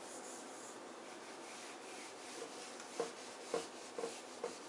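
Handheld whiteboard eraser rubbing across the board, wiping off marker writing. A faint steady rubbing, then about five short strokes in quick succession near the end.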